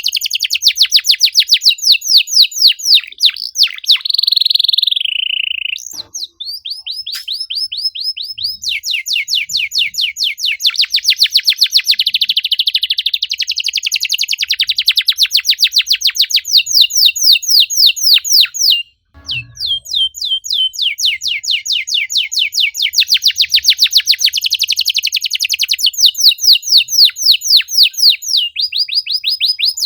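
Domestic canary singing long, fast runs of repeated chirping notes, about eight a second. There is a briefly held note about four seconds in, and short breaks near six and nineteen seconds.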